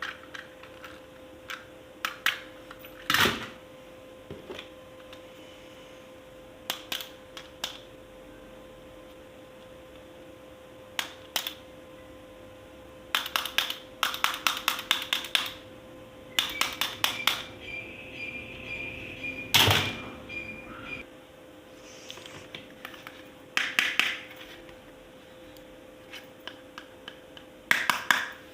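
Hard plastic clicking and clattering: scattered single clicks and several quick runs of clicks, as toy pieces and packaging are handled, over a faint steady hum.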